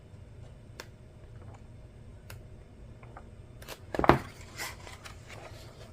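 Pages of a thick-paged paperback coloring book being handled and turned: a few light paper ticks, then a louder rustle and flap about four seconds in.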